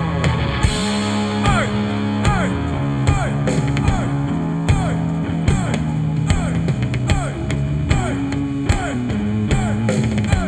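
Live 1970s-style rock band playing an instrumental passage: electric guitar over bass and drums, with regular drum hits.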